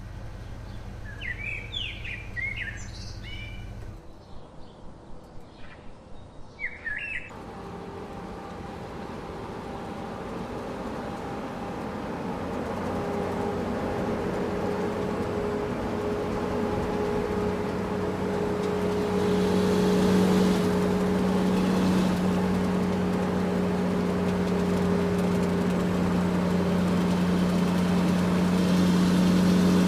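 Birds chirping for the first several seconds, then a motor running with a steady hum that grows gradually louder.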